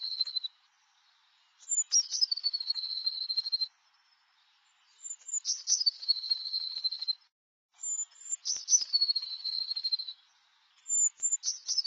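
A tit singing: a phrase of a few high, thin notes dropping into a steady trill, repeated four times about every three seconds with short silent gaps between.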